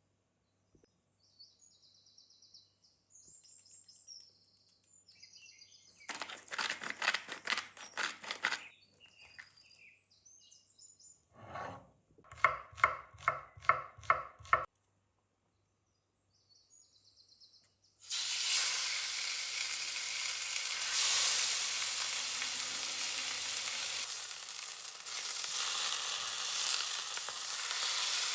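A few runs of sharp kitchen taps and knocks, then, about two-thirds of the way in, steady loud sizzling sets in as chicken breast sears in hot olive oil in a pan.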